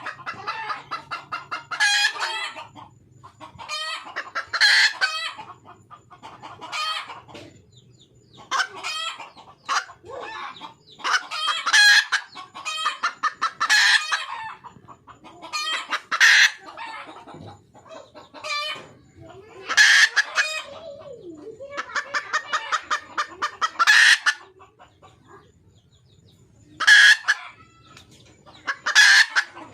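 Red junglefowl hen cackling to call a mate: runs of rapid clucks that build into loud calls, repeated over and over with short pauses between.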